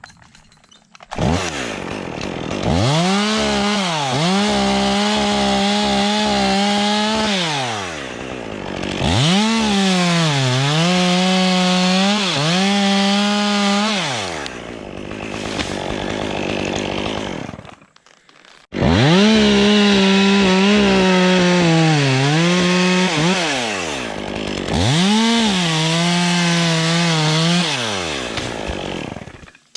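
Two-stroke chainsaw held at full throttle through four long cuts in wood. The engine note dips sharply as the chain bites and then holds steady under load. Between cuts it falls back, and it drops out briefly about two-thirds of the way through.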